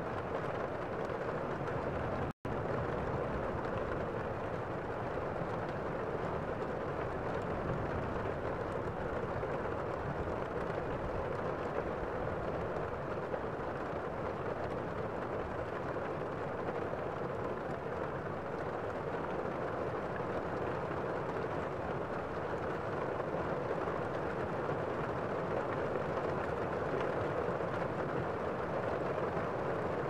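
Waterfall cascading over rocks: a steady rush of falling water, cut by a split-second dropout about two seconds in.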